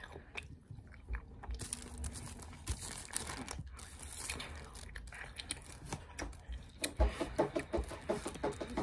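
Fruit roll-up being peeled and torn from its plastic backing, with plastic film crinkling in irregular crackles that grow dense near the end.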